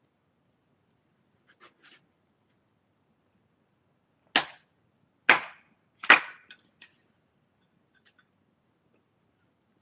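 Firewood being split: three sharp strikes about a second apart, followed by a few lighter knocks.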